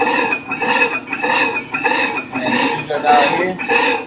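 Brake lathe's cutting bit turning down the inside of a brake drum: a metallic ringing scrape that swells and fades about every 0.6 s, once per turn of the drum. The cut bites unevenly because the drum is warped.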